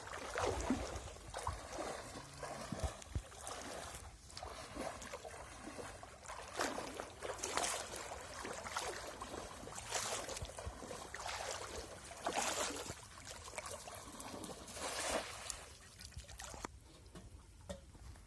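Shallow water sloshing and splashing in a series of surges several seconds apart, with trickling in between. It quietens near the end.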